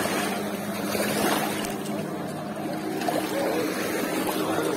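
Steady drone of a distant motorboat engine over the wash of shallow sea water, with faint voices of people in the water.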